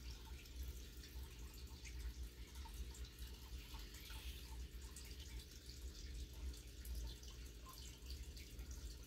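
Quiet room tone: a steady low hum with faint, scattered small ticks.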